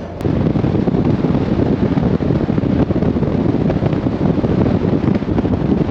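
Wind buffeting the microphone: a loud, gusty rumble with no clear tone.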